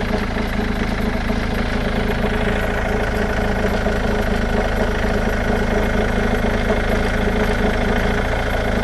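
Ford Mondeo 2.0 TDCi four-cylinder diesel engine idling steadily.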